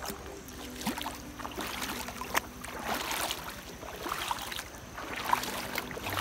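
Shallow stream water trickling over pebbles, with many small irregular splashes and gurgles.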